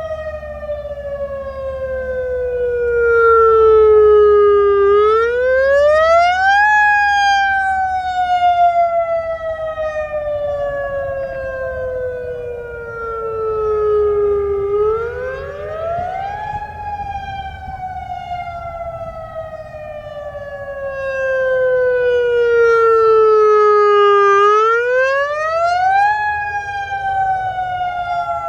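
Federal Signal EOWS 612 electronic warning siren sounding the Attack signal: a loud tone that slides slowly down in pitch for about eight seconds, then climbs quickly back up in about two, over and over.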